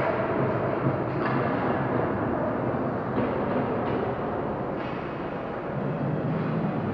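Steady ice-rink arena ambience: an even rumbling hum with a few faint knocks.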